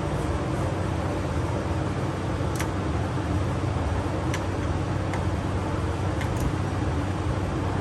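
Steady low rumbling background noise with a few light, sharp clicks scattered through it.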